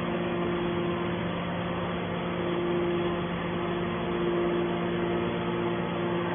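Hydraulic baler's power unit, its electric motor and pump, running with a steady hum.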